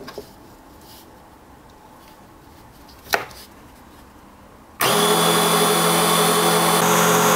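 A click about three seconds in, then near five seconds a DC 775 motor driving a small 60 mm circular saw blade through a timing belt starts suddenly and runs steadily with no load, a constant hum and whine.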